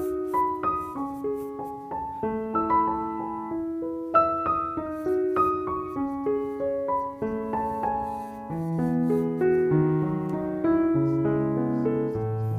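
Background piano music: a gentle melody of single notes, joined by lower bass notes about two-thirds of the way through.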